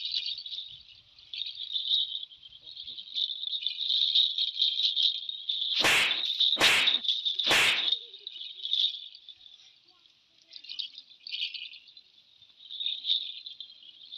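Small bells tied at the players' ankles jingle and rattle in a fluttering stream as they shift and step. Three sharp swishes of a straw broom against the ground come about six to eight seconds in.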